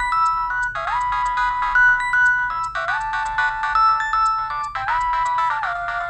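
Preloaded ringtone of a Nokia 6010 mobile phone playing from its speaker: an electronic tune with several notes sounding together, moving in phrases about two seconds long.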